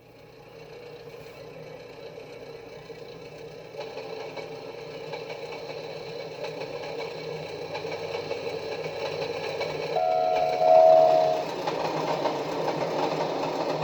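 A locomotive running, a rapid steady mechanical beat that grows louder as it draws near, with a short two-note whistle blown about ten seconds in.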